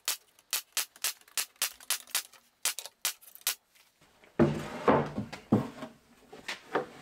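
Pneumatic nail gun firing a quick run of nails, about four shots a second, fastening scrap plywood panels to the cabinet. Guitar music starts about four seconds in.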